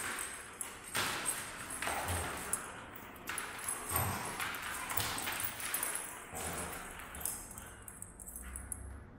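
A border collie and a German shepherd play-wrestling: paws scrabbling and thudding on a rubber-matted floor in irregular bursts of scuffling.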